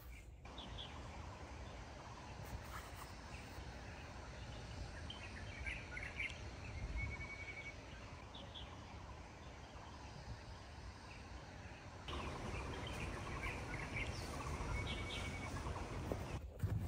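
Birds calling, scattered short chirps and a brief trill, over a steady low background rumble; a short knock near the end.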